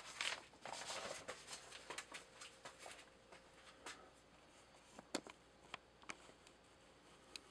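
Faint rustling of a paper sheet being handled and laid down, with small clicks and taps mixed in. The rustling dies away after about four seconds, leaving a few scattered clicks.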